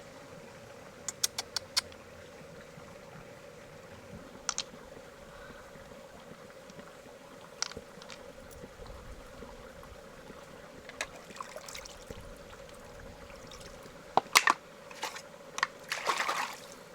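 Scattered sharp clicks and taps of small hard objects knocking together: four quick ticks about a second in, a few single ones, then a busy cluster near the end. A faint steady hum runs underneath.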